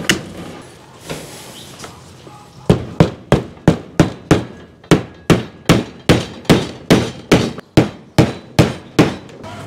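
A hammer driving nails: about twenty quick, sharp blows, roughly three a second with one short pause, starting a few seconds in after a couple of single knocks.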